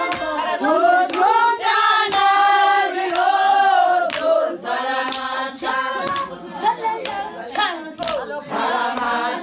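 A group of women singing a traditional Xhosa song together, with hand clapping to keep time.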